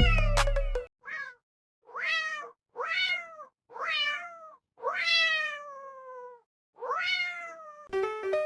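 A cat meowing six times in a row, each meow falling in pitch; the fifth is the longest and the first is short and faint.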